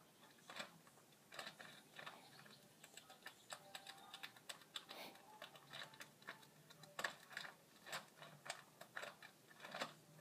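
Faint, irregular crunching and crackling: a squirrel chewing dry dog kibble with its head in the plastic food bag. The sharpest crunches come in the second half.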